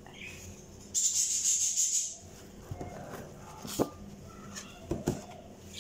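A crying woman sniffling as she wipes her eyes and nose with a tissue: a sharp hiss lasting about a second, then two short knocks as she handles things at the table.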